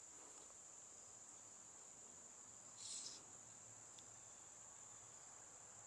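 Near silence with a faint, steady, high-pitched insect trill, and a brief soft rustle about three seconds in.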